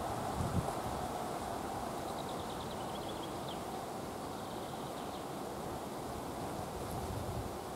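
Outdoor ambience: a steady drone with a bird chirping a few times between about two and three and a half seconds in.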